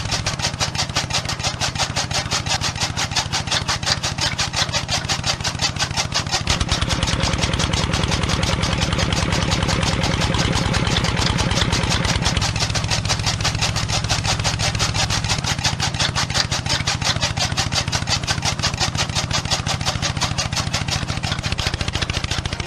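A small motor running steadily with a rapid, even ticking, louder for several seconds in the middle.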